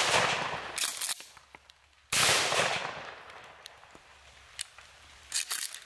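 Shotgun loaded with small #8 shot firing at a squirrel: the tail of one blast dies away at the start, a few sharp clicks follow about a second in, then a second loud blast about two seconds in fades over about a second.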